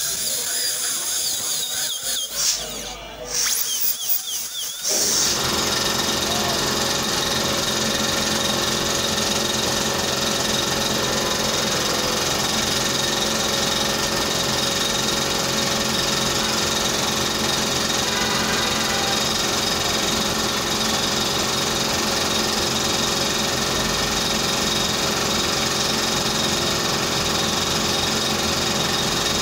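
Dental drill in short, broken bursts, then running steadily from about five seconds in.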